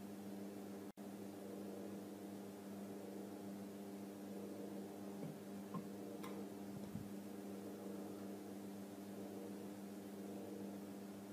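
Steady low hum over faint hiss, cutting out for an instant about a second in, with one faint click about six seconds in.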